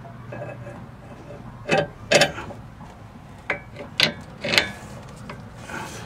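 Sharp metal clacks and scrapes as a new sway bar link's stud is forced up, down and sideways to line it up with its hole in the strut bracket. There are about five, spaced roughly half a second to a second apart, with the loudest a little after two seconds in.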